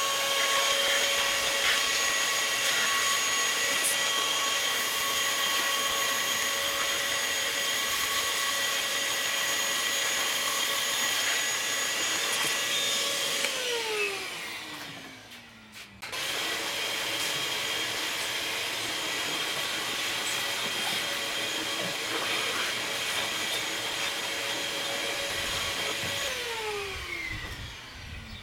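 Electric air blower with a flexible hose, running with a steady high whine as it blows water off a freshly washed engine. About halfway through it is switched off and its motor winds down with a falling whine. It starts again a couple of seconds later and winds down again near the end.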